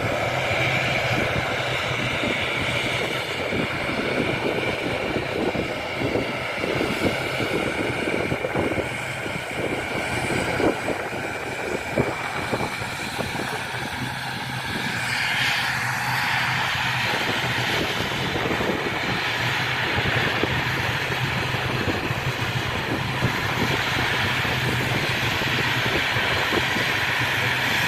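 Aircraft engines running steadily with a high whine over a low hum, with wind buffeting the microphone during the first half.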